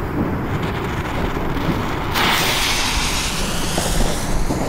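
A firework cake's fuse catching and burning with a loud hiss that starts suddenly about two seconds in, over a steady low rumble.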